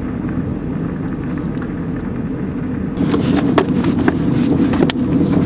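Steady low road and engine noise inside a moving car's cabin. About three seconds in it gets louder, with a scatter of clicks and knocks over it.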